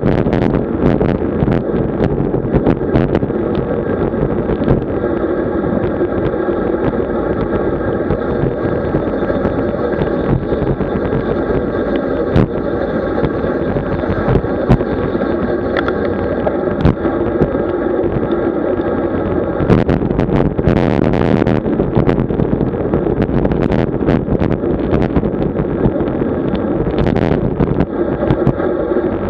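Steady road and wind noise picked up while riding a road bicycle, with many small clicks and knocks from the camera mount rattling over the road surface. There is a brief louder hissing rush about two-thirds of the way through.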